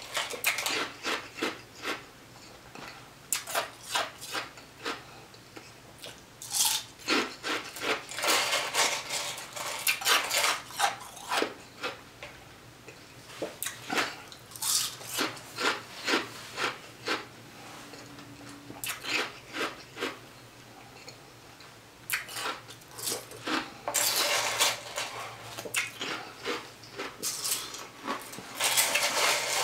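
Ice being crunched and chewed close to the microphone, in quick runs of crunches with short pauses between them. A plastic spoon scrapes and clicks against ice in a foam cup.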